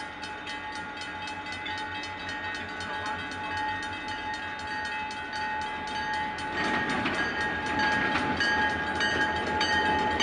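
Level-crossing warning bell ringing in rapid, even strikes as a CN diesel locomotive, a GP40, approaches. From about two-thirds in the locomotive's engine and wheels grow steadily louder under the bell.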